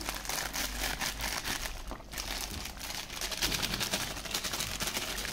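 Thin plastic packet crinkling in the hand as kasuri methi (dried fenugreek leaves) is crushed and sprinkled out of it, an irregular crackling.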